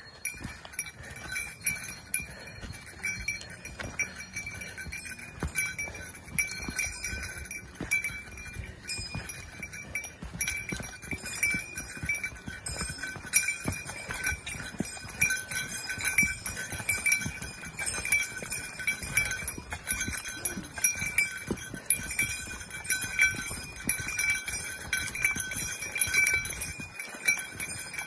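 Bear bell jingling over and over in time with a hiker's stride, its ringing tones steady throughout, with footsteps on a dirt trail beneath it.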